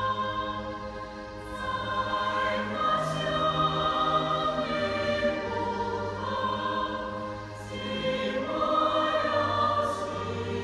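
A church choir singing sustained chords, easing off briefly about a second in and again around seven seconds before swelling back.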